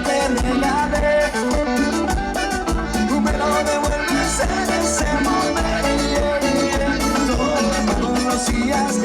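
Live band playing Latin dance music with a steady percussion beat, pitched melody lines and a shaker.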